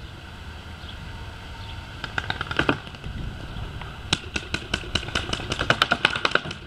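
Paintball gunfire: a short burst of sharp pops about two seconds in, then a rapid string of shots, several a second, from about four seconds on, over a steady low rumble.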